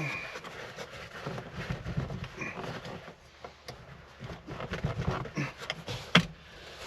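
Rustling and handling noises with scattered small clicks and knocks as a seat cover is worked over a car seat, and one sharp knock about six seconds in.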